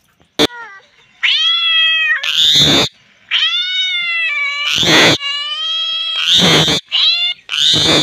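Parakeet calling: about four drawn-out, wavering calls, each one breaking into a short harsh screech.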